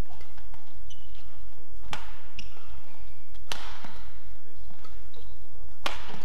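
Badminton rackets striking a shuttlecock in a rally: three sharp cracks, roughly two seconds apart, with brief high squeaks of court shoes on the mat between them.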